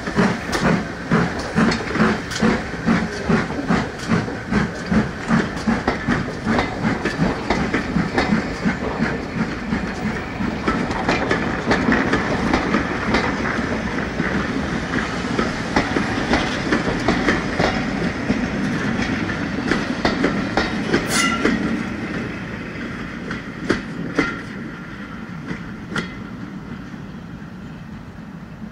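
A steam-hauled passenger train pulling away past the listener. Strong regular beats come about twice a second at first, then wheels click over the rail joints as the coaches roll by. The sound fades as the train draws away.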